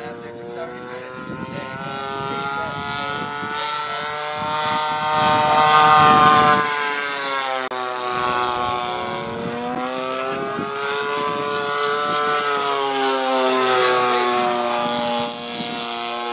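Radio-controlled Extra 300 model plane's 55cc two-stroke gas engine and propeller running in flight, the pitch repeatedly rising and falling as it manoeuvres and passes. It is loudest about six seconds in, then the pitch drops sharply.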